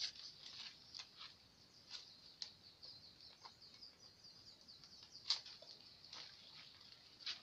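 Faint high bird chirping in the background, with a few brief clicks and rustles, the sharpest about five seconds in.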